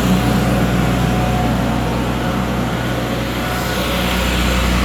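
An engine running steadily at idle, a continuous low drone.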